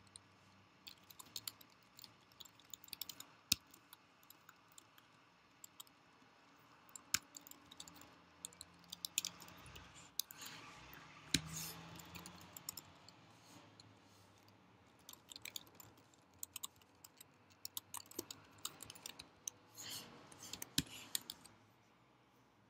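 Faint typing on a computer keyboard: irregular key clicks in quick runs, with short pauses between them.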